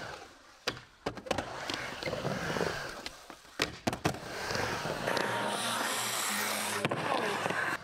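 Skateboard wheels rolling across a wooden vert ramp, with several sharp clacks of the board and trucks hitting the ramp.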